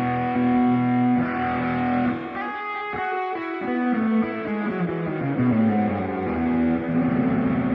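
Electric guitar played through a Ring Boost Ranger 'RMB' booster pedal, with a driven, slightly distorted tone. It plays held notes, then a quick run of picked notes, then a descending line, ending on a long sustained note.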